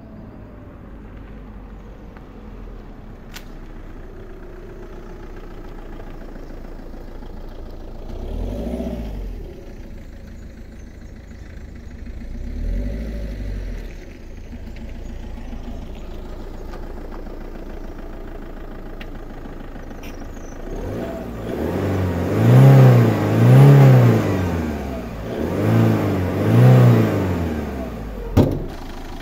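Peugeot 206's 2.0 HDi PSA DW10 four-cylinder turbodiesel, first heard faintly at a distance with two brief surges of throttle, then close up and revved four times in quick rising-and-falling blips during the last several seconds. A sharp click sounds just before the end.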